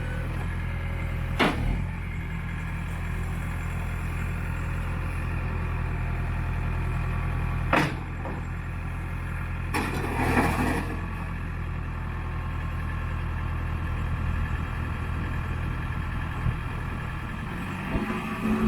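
Case 580N backhoe loader's diesel engine idling steadily, with a couple of sharp knocks and a short hiss-like burst partway through.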